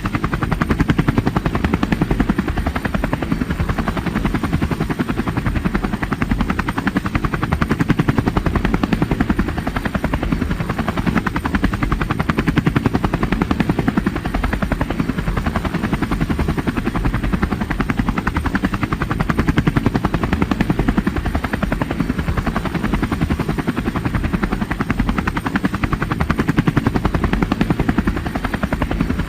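Helicopter in flight, its main rotor making a steady, rapid chop over continuous engine noise.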